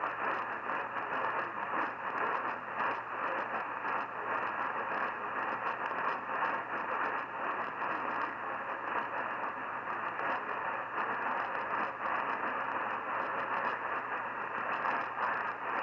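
AM radio static: a steady hiss with a low hum and faint crackle, a weak medium-wave signal barely received on a distant station.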